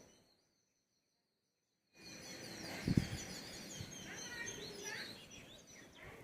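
About two seconds of near silence, then birds chirping and twittering over a steady outdoor background noise. A single low thump comes about a second after the sound begins and is the loudest moment.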